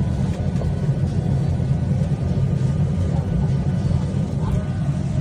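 Airliner cabin noise: a steady low rumble of engine and airflow.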